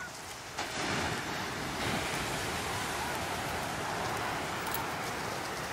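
Heavy shorebreak waves breaking and washing onto the sand, a continuous roar of surf that grows louder about half a second in.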